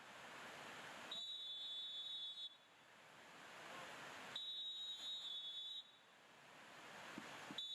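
Faint high-pitched electronic beep, held about a second and a half and repeating about every three seconds, with a hiss between beeps that rises toward the next one.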